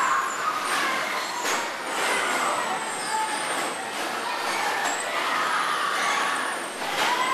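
Electric bumper cars running around a rink, their motors whining and sliding up and down in pitch as they speed up and slow, with a few knocks from the cars bumping.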